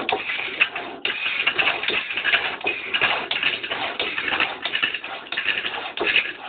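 Turning tool scraping and cutting a wooden disc as it spins on a homemade wood lathe with no electric motor: a continuous rough scraping, uneven in loudness.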